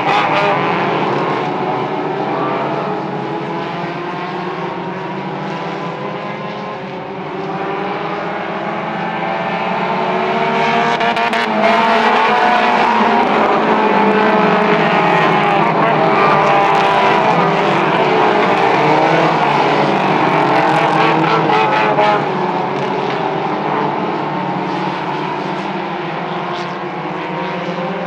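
Mini stock race cars running at speed, several engines heard at once, their pitch rising and falling as they go around. They grow louder about twelve seconds in and ease off a little after about twenty-two seconds.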